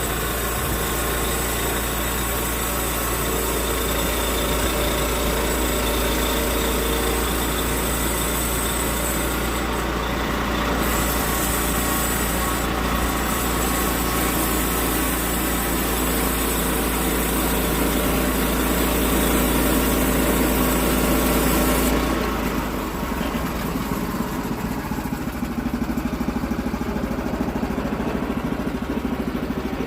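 Engine-driven portable band sawmill running and cutting a slab off an oak log. About 22 seconds in the sound drops to a lighter, quieter running.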